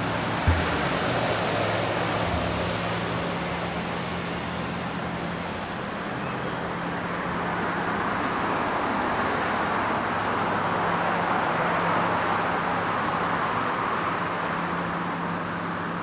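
Road traffic going by, a steady rush of tyres and engines that swells and fades as vehicles pass. A brief low thump about half a second in.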